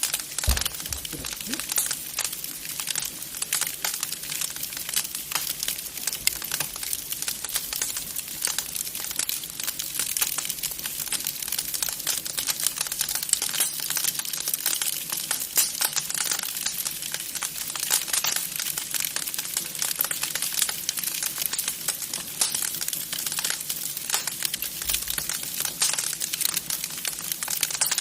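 Wood fire crackling in a fireplace: a steady, dense run of small pops and snaps.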